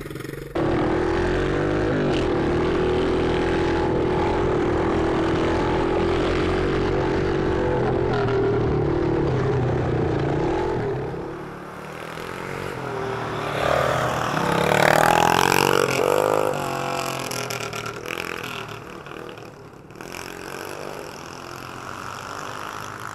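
Small pit bike engine running steadily at close range for about ten seconds. Then off-road engines, a quad and a pit bike, rev up as they approach and pass, loudest a few seconds later, and fade away.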